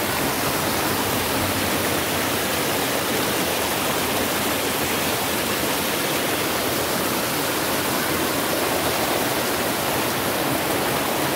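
Rain-swollen stream rushing and churning as white water over and between rocks close to the microphone, a steady loud rush with no let-up. The stream is in flood after a night of heavy rain.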